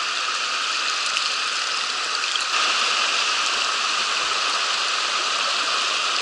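Mountain stream water rushing steadily, a continuous hiss of flowing water that gets a little louder about two and a half seconds in.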